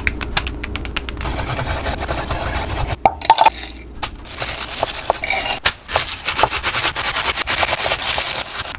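Chef's knife chopping garlic chives on a round wooden cutting board: quick, dense knocks of the blade on wood, thickest in the second half. Earlier, herb leaves are picked and handled with crisp crackling.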